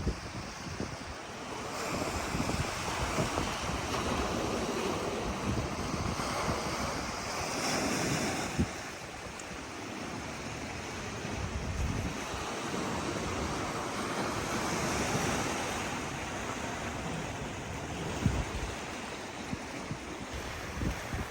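Sea waves breaking and washing on the shore, swelling and ebbing every few seconds, with wind buffeting the microphone. There are a couple of brief sharp thumps, one a little before halfway and one near the end.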